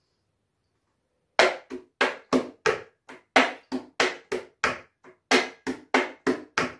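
Hand slaps in a body-percussion rhythm pattern, the kind the teacher later calls the typical structure of a waltz. After about a second and a half of silence, a steady run of sharp slaps starts at about three a second, some louder than others.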